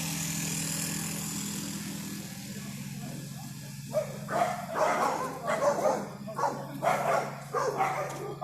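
A dog barking repeatedly, about two barks a second, starting about four seconds in. Before that a steady low engine hum fills the first few seconds.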